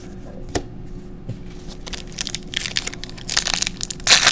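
Foil trading-card pack wrapper being torn open and crinkled by hand. A single sharp click comes under a second in, and the crackly crinkling starts about halfway and is loudest near the end.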